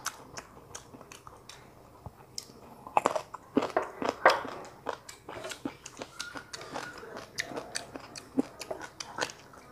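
Close-miked chewing of a mouthful of rice and braised pork rib: a run of short mouth clicks and bites, heaviest about three to four and a half seconds in.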